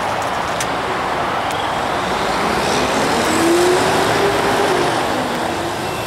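Road traffic going by, swelling as a box truck passes about three to four seconds in.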